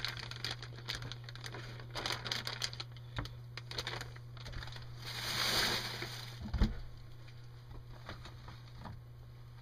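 Plastic zip-top bag rustling and crinkling with small clicks as raw meat is handled out of it, a louder rustle about five and a half seconds in and a dull thump soon after. A steady low electrical hum runs underneath.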